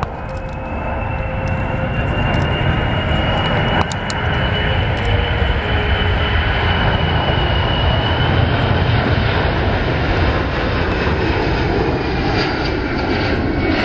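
The four Pratt & Whitney F117 turbofan engines of a Boeing C-17 Globemaster III run at high power through a tight banked turn: a loud, steady roar that builds over the first couple of seconds. Over it is a high whine that rises gently and fades in the second half.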